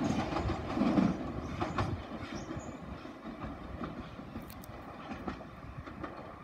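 Southern Class 377 Electrostar electric multiple unit pulling away along the track. Its running noise fades steadily as it moves off, with a few clicks from the wheels over the rails.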